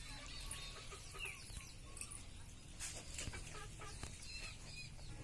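Chickens clucking, with a couple of short sharp clicks about three seconds in.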